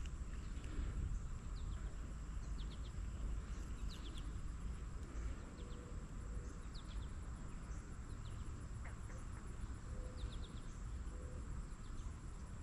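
Outdoor ambience: a steady high insect drone with short bird chirps, often in twos and threes, over a low wind rumble.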